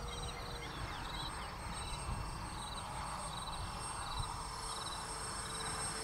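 Faint, steady whine of the Multiplex Learjet RC jet's twin 50 mm, 12-blade electric ducted fans in flight, swelling near the end as the jet comes closer. Insects chirp in short repeated trills throughout.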